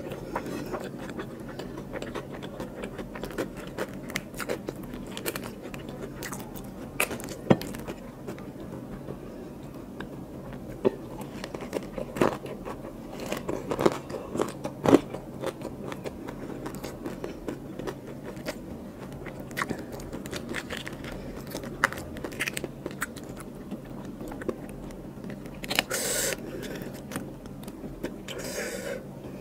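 Close-up eating sounds of a person chewing biryani rice and prawn by hand: a steady run of wet mouth clicks and smacks with a few sharper bites. There are two short breathy rushes near the end.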